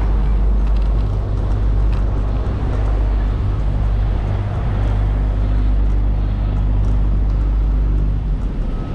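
Steady low rumble of motor vehicles and street traffic, with a few faint clicks.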